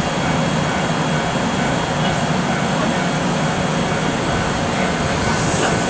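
EF64 electric locomotive standing still with its cooling blowers running: a steady whirring rush with a low hum underneath.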